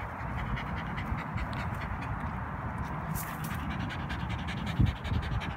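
Shiba Inu panting rapidly and steadily close to the microphone, with a single low thump about five seconds in.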